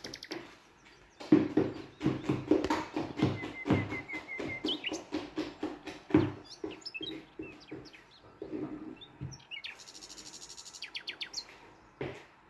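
A metal spoon stirring thick batter in a bowl, scraping and knocking against its sides in uneven strokes. Small birds chirp in the background, with a short trill of repeated notes.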